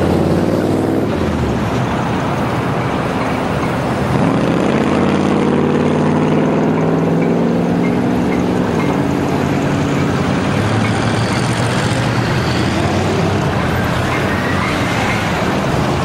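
A vehicle engine over steady road noise. From about four seconds in, the engine's pitch climbs as it accelerates, then drops abruptly at a gear change near the middle, and it runs steadily after that.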